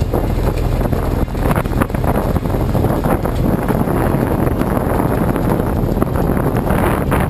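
Wind buffeting the microphone on the open deck of a fishing boat under way, over a steady low rumble from the boat and rushing water, with scattered small knocks and clatters.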